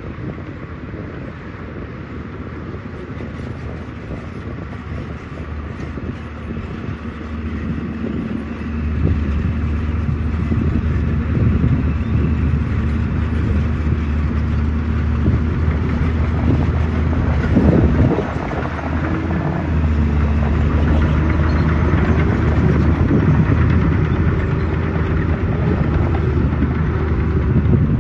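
Heavy construction machine's diesel engine running steadily, getting louder about eight or nine seconds in, with a short burst of clatter around the middle.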